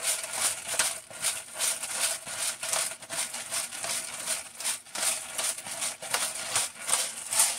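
Pepper mill grinding peppercorns over the pot: a steady run of short crunchy grinding strokes, about two to three a second.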